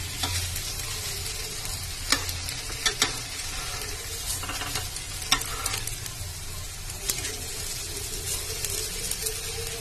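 Grated-potato tikkis shallow-frying in oil on a tawa with a steady sizzle. A metal spatula scrapes and clicks against the pan a handful of times as the patties are flipped.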